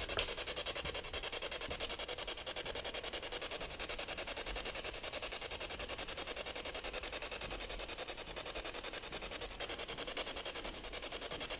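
Steady static hiss with a fast, even pulsing, from an electronic ghost-hunting device left running.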